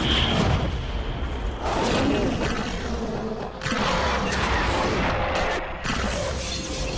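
Fight sound effects for an animated sword battle: a run of heavy impacts, crashes and rushing noise, with music underneath.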